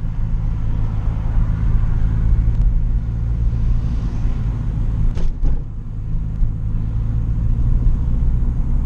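Turbocharged Toyota Corolla's four-cylinder 4E-FE engine, fitted with a CT20 turbo and a 2.5-inch exhaust, running steadily at low revs, heard from on board. About five seconds in there is a brief falling whoosh.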